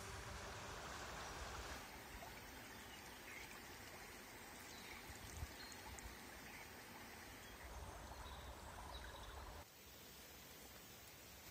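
Water flowing in a levada irrigation channel, a faint steady rushing that turns softer about ten seconds in.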